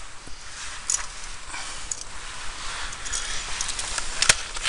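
Light handling noises of fishing tackle: faint clicks and rustling over a steady hiss, with one sharp click near the end.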